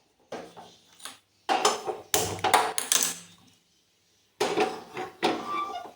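Metal kitchen utensils clattering and scraping against a pan in three short spells, each starting and stopping abruptly.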